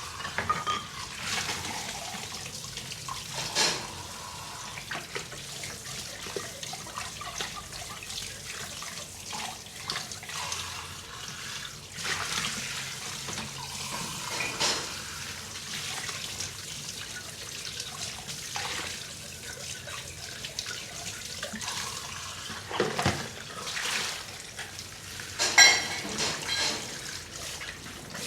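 Dishes being washed by hand in a sink: water splashing and trickling, with scattered knocks and clinks of dishes, the loudest a ringing clink near the end.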